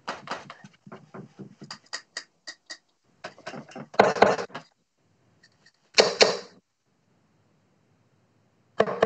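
Steel-tip darts striking a bristle dartboard: two loud hits about two seconds apart, with another near the end. Before them comes a quick run of light clicks and taps.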